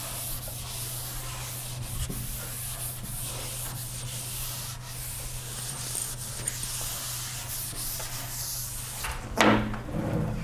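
Steady rubbing and scratching against a lecture board, over a constant low electrical hum, with a brief louder sound near the end.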